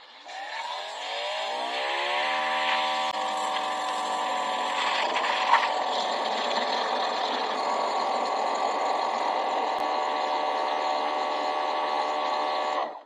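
Greenworks 80 V cordless pressure washer's electric motor and pump spinning up over about two seconds to a steady whine, with the hiss of the 0-degree nozzle's jet spraying into a bucket. It cuts off suddenly near the end as the trigger is released.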